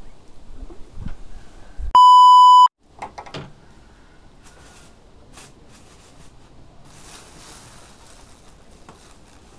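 A single loud electronic beep, one steady tone of well under a second, about two seconds in.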